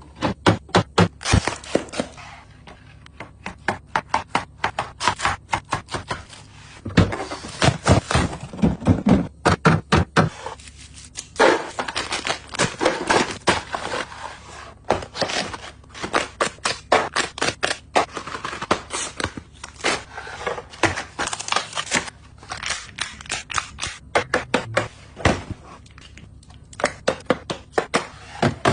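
Groceries and plastic containers being handled and set into a refrigerator: quick runs of clicks, taps and knocks of plastic and packaging, with short scrapes, broken by brief pauses.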